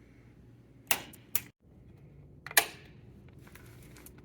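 Three sharp mechanical clicks, the first about a second in, the second just after, and the third a little past the middle, over a faint low hum. The sound drops out for an instant between the second and third click.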